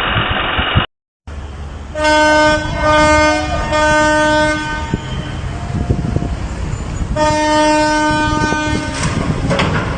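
A horn sounds three short blasts and then, after a pause, one longer blast, all on a single steady pitch. Engine and rumbling noise run underneath.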